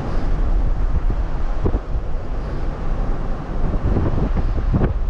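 Car driving on a road: a steady low rumble of engine and tyres, with wind buffeting the microphone in a few brief gusts.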